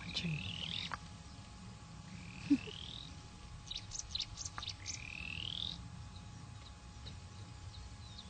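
An animal calling: a whistled note that rises in pitch, each about a second long, three times a couple of seconds apart. A burst of faint high clicks falls between the second and third calls, and there is one sharp knock.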